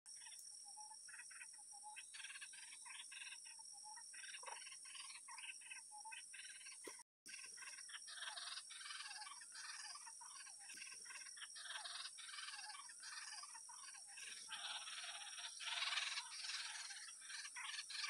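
Faint chorus of short, quick chirping animal calls repeated many times, growing busier and louder in the second half, over a steady high-pitched hiss; the sound drops out for a moment about seven seconds in.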